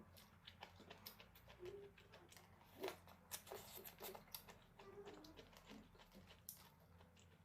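Faint eating sounds: a run of small clicks and mouth smacks from chewing and handling noodles, the most distinct about three seconds in.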